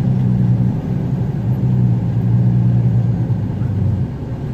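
Vehicle engine droning steadily, heard inside the cab while driving in traffic. The low hum dips briefly about a second in and eases off near the end.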